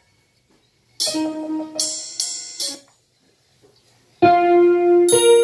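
Karaoke music playback in short pieces separated by silence: a brief keyboard phrase with bright cymbal-like hits about a second in, then held electric keyboard notes starting near the end.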